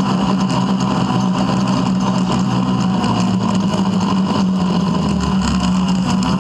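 Polaris RZR 570 side-by-side's single-cylinder engine running steadily at an even trail speed, heard from on board the vehicle.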